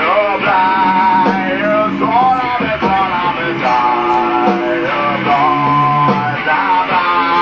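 Rock music from a live jam: a Stratocaster-style electric guitar played while a man sings into a microphone over it.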